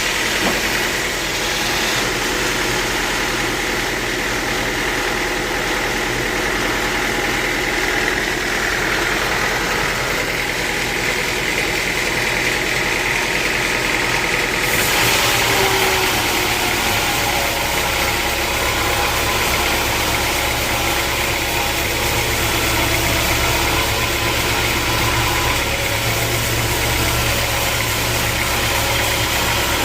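Sawmill machinery running steadily with a whine near 2 kHz; about halfway through the sound changes and a deeper rumble grows louder.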